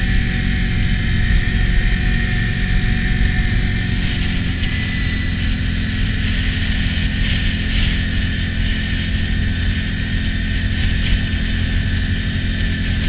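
Can-Am Outlander 650 ATV on Apache 360 rubber tracks, its engine running steadily as it travels along a snow trail, with a steady high whine above the engine's low rumble.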